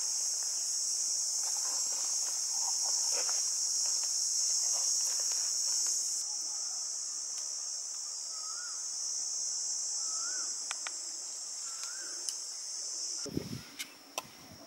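A steady, high-pitched insect chorus that drops a little about six seconds in and cuts off abruptly near the end, followed by a few light clicks and taps.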